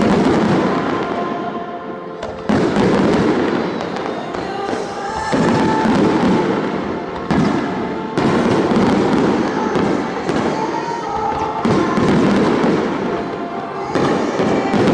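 Fireworks bursting in a rapid series of booms, each trailing into a long crackle, with a new volley every one to three seconds, over music played for a fireworks show set to music.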